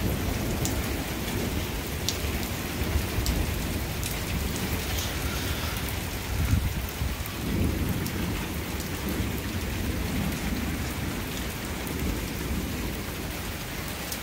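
Steady rain falling in a thunderstorm, with thunder rumbling low underneath that swells about halfway through.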